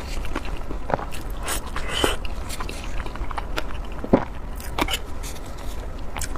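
Close-miked chewing and biting: irregular wet mouth clicks and smacks of someone eating, with the sharpest one a little past four seconds in.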